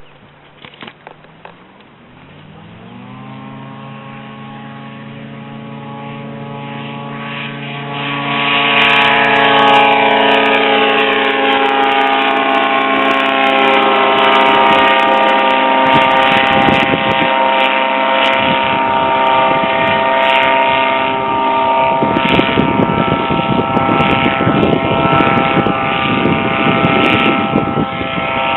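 HM-1000 Balerit ultralight's engine and propeller: the engine note climbs in pitch in the first few seconds, settles into a steady run, then grows much louder about eight seconds in and stays at a strong, even drone.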